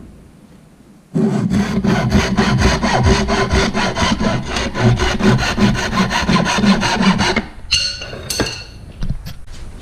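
Hand saw cutting through wood in quick, even strokes for about six seconds, then stopping, followed by a few light clattering knocks.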